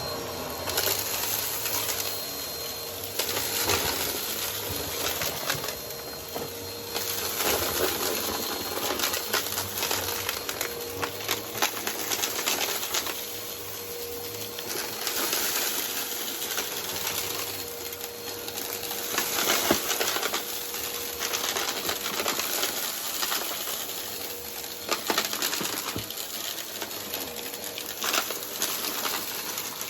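Vacuum cleaner running over carpet, sucking up dirt and grit that crackle and rattle through it, with a faint steady motor whine. The sound swells and eases every few seconds.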